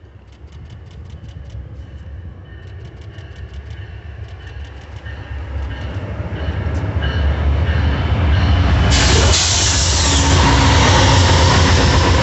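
Amtrak passenger train, a diesel locomotive hauling bilevel Superliner cars, approaching and passing at speed. A low engine rumble grows steadily louder, and about nine seconds in the locomotive draws level and a loud rush of wheels and wind takes over. A faint rapid ticking runs through the first half.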